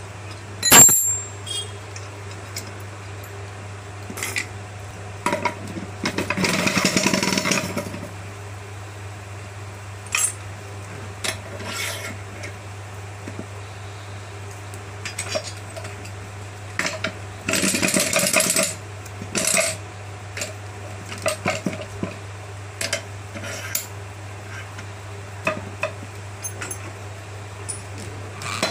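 Metal clinks and knocks of hand tools and steel parts as a manual ROPP capping machine is assembled, with a sharp knock about a second in and two stretches of rapid metallic rattling, each lasting a couple of seconds, over a steady low hum.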